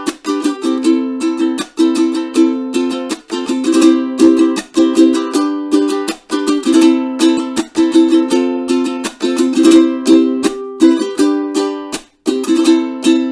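Nalu Carbon ukulele being strummed, a steady rhythm of chords with short breaks between phrases.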